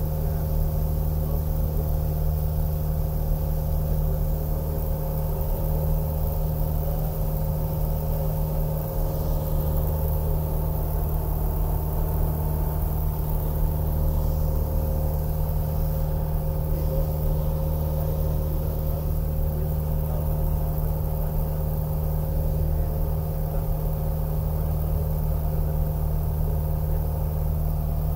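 Light propeller airplane's engine and propeller droning steadily in level cruise, heard from inside the cockpit.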